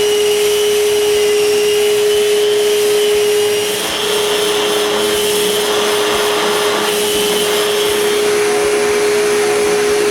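Electric power sander running steadily with a constant motor whine over a rushing hiss, sanding the outside of small wooden boxes; the level dips briefly about four seconds in.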